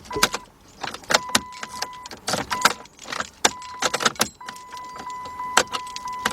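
Car key rattling and clicking in the ignition lock cylinder as it is worked back and forth, over a steady electronic warning tone from the dashboard that cuts in and out several times. The ignition switch sticks and will not turn to the lock position: the switch is faulty.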